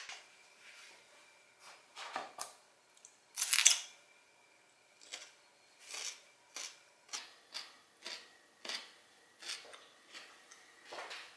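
Quiet clicks and knocks of hands handling a homemade wooden potato peeler and the peeled potato, with no motor running. The loudest knocks come about three and a half seconds in, followed by light ticks roughly every half second.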